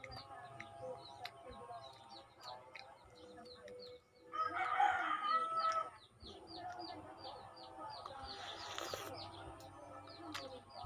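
A rooster crows once, about four seconds in, for roughly two seconds. Under it, a small bird chirps rapidly and steadily, about three short high chirps a second.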